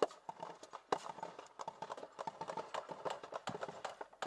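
Scattered gunfire in a firefight: irregular sharp cracks and knocks, with a louder crack at the start and another about a second in.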